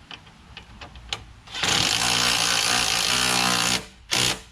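Handheld power driver running for about two seconds, then a short second burst, fastening a toe guard onto a push mower. A few small handling clicks come before it.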